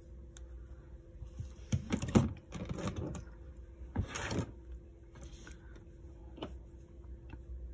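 Rustling and scraping of hands handling a cotton yarn swatch while a yarn end is woven in with a darning needle, in a few short bursts in the first half, with a couple of light clicks later.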